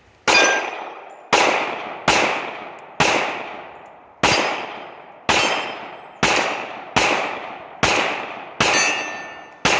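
Glock 9 mm pistol firing about ten shots at a steady pace of roughly one a second, each crack trailing off in a long echo.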